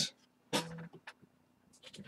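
A brief, faint murmur from a man's voice about half a second in, then quiet room tone.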